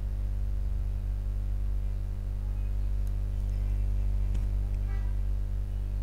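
Steady low electrical mains hum, with a faint click about four and a half seconds in.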